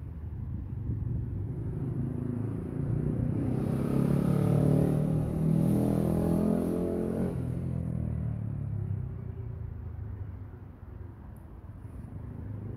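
A motor vehicle passing on the street, its engine sound swelling to a peak about halfway through and then fading away, over a steady low traffic rumble.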